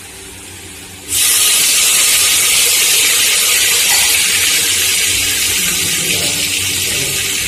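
Mustard and cumin seeds sizzling in hot coconut oil in a clay pot as they temper. A steady, loud hiss starts abruptly about a second in.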